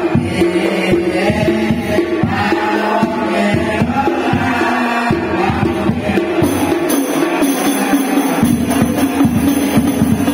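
Group of young men chanting in unison from their books, with a frame drum (rebana) struck in a steady rhythm beneath the voices.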